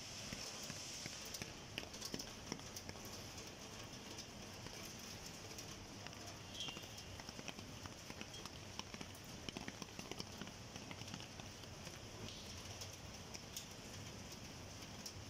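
Steady rain hiss with irregular ticks of drops landing on wet steel railings and stair plates.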